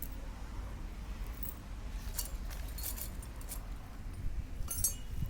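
Small metal parts clinking and rattling a few times, scattered, over a steady low rumble.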